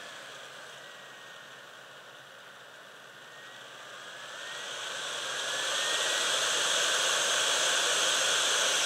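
Yihua 878AD hot air rework gun's fan blowing a steady hiss of air with a faint motor whine. As the fan speed is turned down, the hiss and whine sink and drop in pitch; about halfway through it is turned back up and they rise to a stronger, steady rush.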